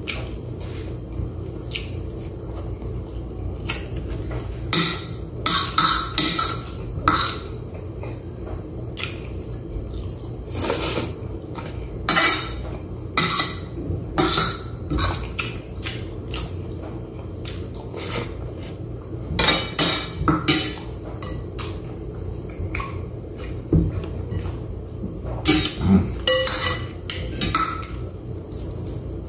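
A metal spoon clinking and scraping against a plate as food is scooped up, in scattered bunches of sharp clinks, over a steady low hum.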